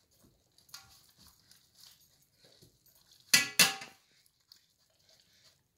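A German Shepherd puppy licking a shallow aluminium feeding pan, with soft scattered licking sounds. There is a light metallic clink about a second in, then two loud metal clanks of the pan about a third of a second apart, a little past halfway.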